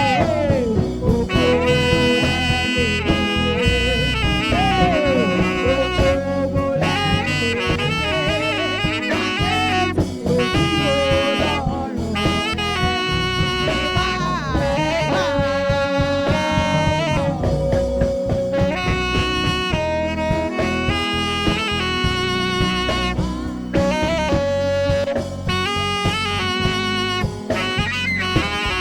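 Instrumental music: a melody with sliding, bending notes and held tones over a steady drum beat.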